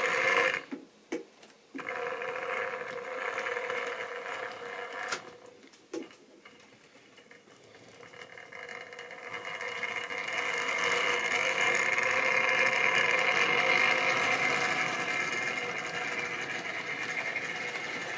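Model railway diesel shunter's small electric motor whirring and its wheels running on the track as it hauls a train of tank wagons, with a few sharp clicks. The sound drops almost away for a couple of seconds, then builds as the train comes closer, loudest about two-thirds of the way through.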